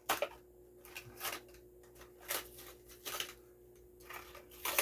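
Plastic blister packaging and its cardboard card of a toy car crinkling and tearing as a child works it open by hand, in a string of short irregular crackles.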